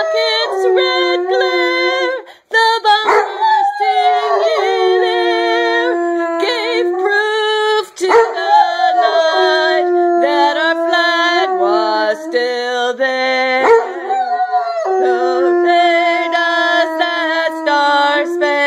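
Weimaraner howling in long, drawn-out notes that slide up and down in pitch like a song, with short breaks about two and a half and eight seconds in.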